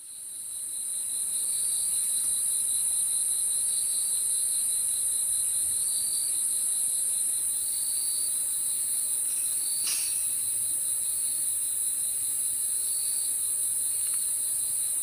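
Evening insect chorus: crickets chirping in a fast, even trill that swells about every two seconds, over a steady high-pitched insect hum. It fades in over the first two seconds.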